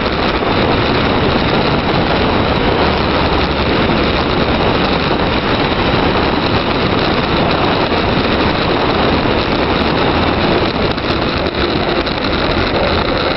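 Steady rush of wind over the microphone mixed with tyre noise on asphalt during a fast downhill ride.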